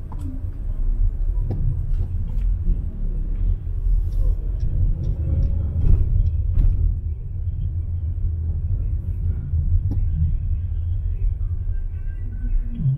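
Low, steady rumble of a car driving slowly along a street, with a few faint clicks.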